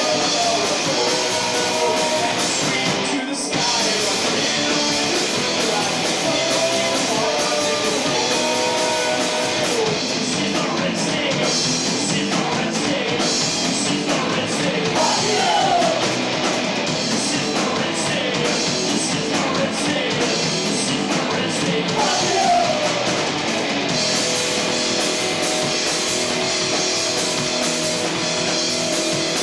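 A live rock band plays with electric guitars, bass guitar and a drum kit, with a momentary break about three seconds in.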